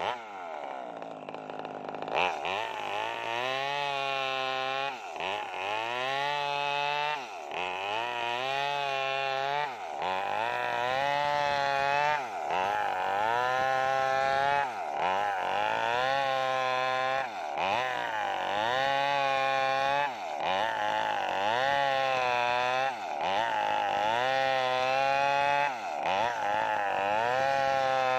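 Maestro mini two-stroke petrol chainsaw ripping lengthwise through a sengon log, its engine revving up under the cut and easing off again about every two and a half seconds.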